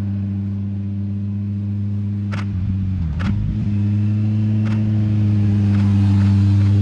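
Vehicle engine running at steady revs. Its note dips and wavers briefly about three seconds in, then settles again and rises slightly near the end. A few sharp clicks sound over it.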